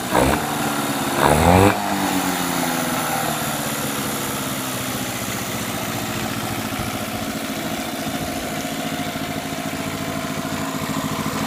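2001 Mercury 15 hp outboard motor running, revved briefly twice in the first two seconds with a quick rise in pitch, then settling into a steady idle.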